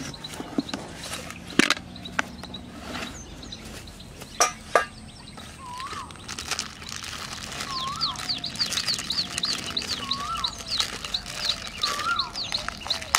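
Birds calling: one bird repeats a short rising-and-falling call every two seconds or so from about halfway through, with a fast, high chirping running along with it. A few sharp clicks from a packet being handled come in the first half.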